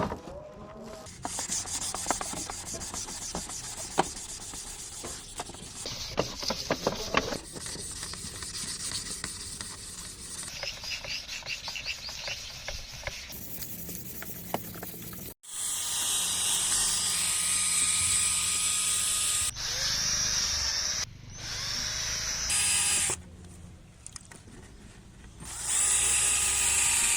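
A handheld power tool running in a string of short cut-together clips, with scraping and rubbing strokes in the first half, then a steady high-pitched whine that starts and stops abruptly several times in the second half.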